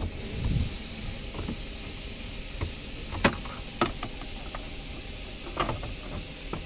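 Hard plastic dashboard trim on an Isuzu D-Max being handled and pulled loose. It rustles briefly about half a second in, then gives a few sharp plastic clicks, the loudest about three seconds in.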